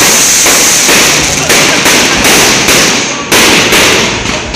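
Fireworks display going off in a dense, steady barrage: loud bangs at about two a second over continuous hiss and crackle.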